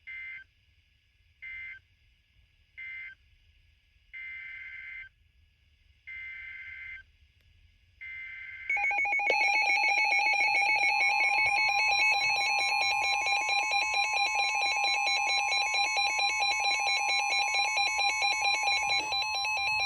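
Emergency Alert System data bursts sounding as harsh buzzy chirps: three short end-of-message bursts, then three longer SAME header bursts about two seconds apart announcing the next warning. About nine seconds in, the loud EAS attention tone starts and holds for about ten seconds, then cuts off.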